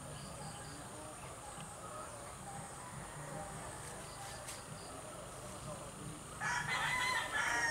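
A loud fowl call lasting about a second and a half near the end, over a faint steady background with a few short high chirps.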